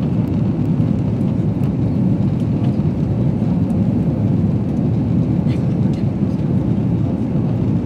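Steady low roar of cabin noise inside an Airbus A340-300 climbing after takeoff, from its four CFM56 engines and the air rushing past the fuselage.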